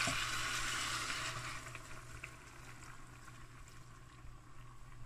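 Boiling water poured from a glass jug over dried fruit in a pot: a hissing rush that fades out over the first two seconds or so.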